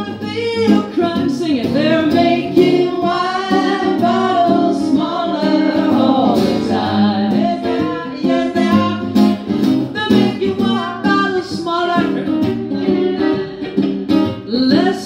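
A woman singing live while strumming an acoustic guitar, her voice holding long notes over a steady strummed rhythm.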